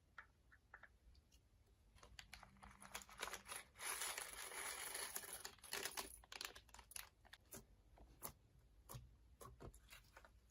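Close, faint handling noises of slime and makeup being worked: scattered small clicks and pops, with about two seconds of dense crinkly crackling near the middle.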